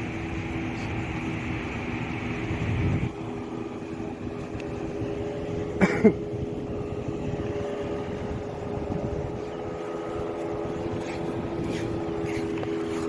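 Steady hum of a boat's engine running offshore, with a wider rush of noise that cuts off about three seconds in. A single brief, sharp sound about six seconds in stands out above the hum.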